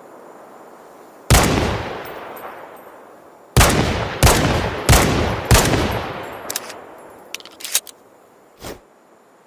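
Desert Eagle pistol shots: a single shot, a pause of about two seconds, then four quick shots about two-thirds of a second apart, each with a long echoing tail. A few light metallic clinks and a short dull thud follow near the end.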